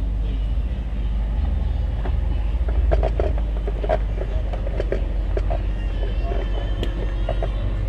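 Off-road vehicle engine running close by with a steady low rumble, with brief short sounds scattered over it from about three to six seconds in.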